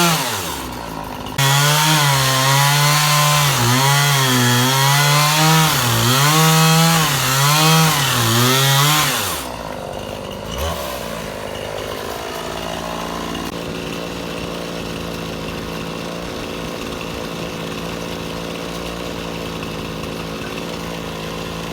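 Sears Craftsman chainsaw cutting wood, its engine note wavering up and down under load. The note dips briefly near the start and then picks up again. About nine seconds in the cut ends and the saw drops to a quieter, steady running.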